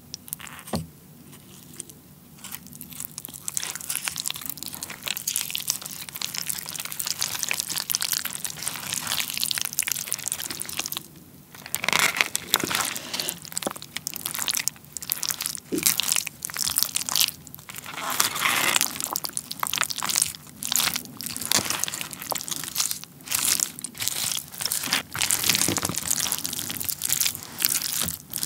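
Wooden spoon mixing beef tartare bibimbap of raw beef, egg yolk, sprouts and greens in a plastic bowl. It makes a continuous close-up crackling, crunchy rustle of the greens being stirred, which grows louder about twelve seconds in.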